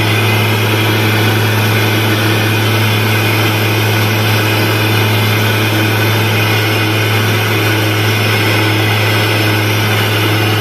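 Steady drone of a passenger aircraft's cabin in flight: engine and air noise with a constant low hum, unchanging throughout.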